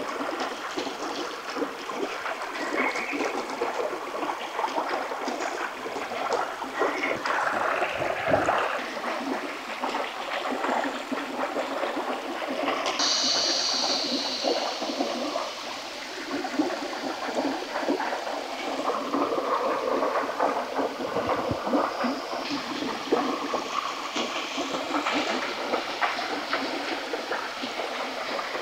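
A small stream running steadily, with the light clicks and rustles of fresh bamboo strips being handled, cut and tied into a trap. A short high-pitched sound comes about halfway through.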